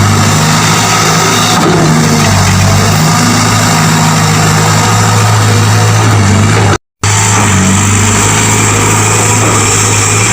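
Excavator's diesel engine running loud and steady, its pitch shifting slightly as it works. The sound cuts out completely for a split second about two-thirds of the way through.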